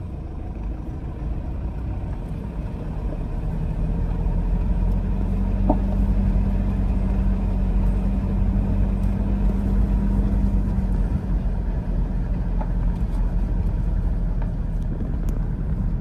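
A vehicle's engine running along with the rumble of its wheels. It grows louder over the first few seconds, then holds a steady low hum.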